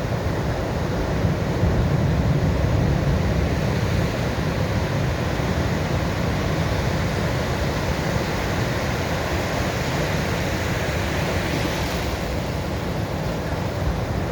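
Sea waves breaking and washing onto the shore in a continuous surf with a deep low rumble. The surf swells a little louder about two seconds in, and a brighter, hissing wash comes through near the end.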